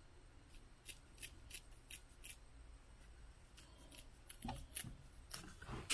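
Scissors snipping through braided snakeskin cable sleeving: many faint, quick snips, several a second.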